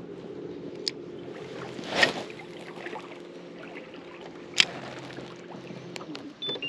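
Electric trolling motor humming steadily with a low, even pitch, then stopping near the end, followed by two short electronic beeps that step down in pitch. A few sharp clicks sound over the hum.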